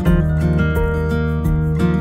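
Background music played on acoustic guitar.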